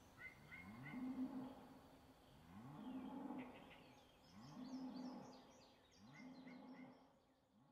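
Faint low animal calls, repeated about five times about a second and a half apart; each rises quickly and then holds its pitch. Faint higher chirps come between them.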